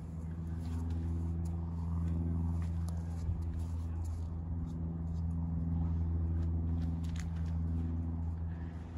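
Steady low hum of an engine running throughout, with a few faint clicks over it.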